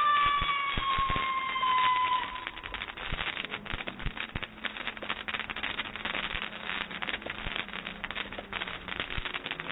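Ground fireworks fountain spraying sparks, with dense, fast crackling. In the first two seconds a long tone with overtones slowly falls in pitch over the crackle.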